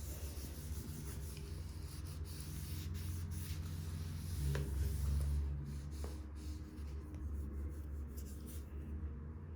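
A cleaning wipe rubbing back and forth over a MacBook keyboard, a steady scrubbing with a few faint clicks.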